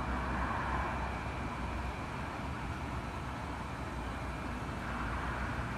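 Steady low rumble of a vehicle engine running, under a constant outdoor background hiss, with no distinct events.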